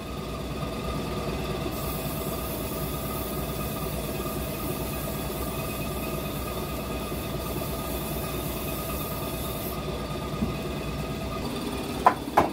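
Aerosol can of fly repellent spraying in one long hiss of about eight seconds, over the steady hum of the milking machine's pump. A couple of sharp knocks near the end.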